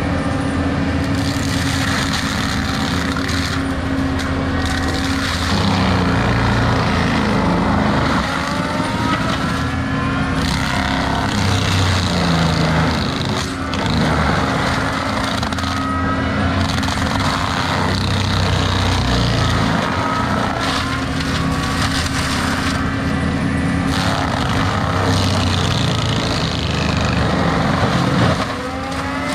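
Diesel land-clearing machinery running steadily at high throttle. Rising whines recur through it, along with stretches of grinding, shredding noise that come and go.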